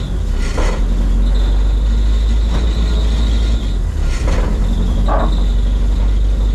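Turbocharged Zetec-engined Mk1 Ford Fiesta on the move with its newly made full exhaust: a loud, steady low engine drone with a thin steady high whine over it, broken by a few short sharp noises.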